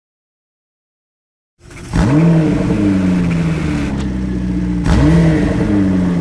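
After a second and a half of silence, a Porsche 911 GT3 flat-six breathing through an Akrapovic exhaust line and silencer blips its revs sharply up and lets them fall back. It holds a steady fast idle, then blips a second time about three seconds later.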